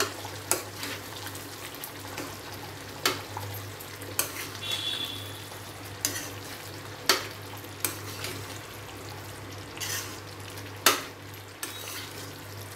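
A spatula stirring thick chicken curry gravy in a non-stick pan, knocking and scraping against the pan about nine times at irregular intervals. Underneath, the gravy simmers with a faint bubbling and a steady low hum.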